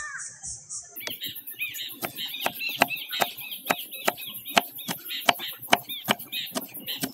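Knife chopping coriander stems against a wooden cutting board, about three quick chops a second, starting about a second in. Birds chirp repeatedly in the background.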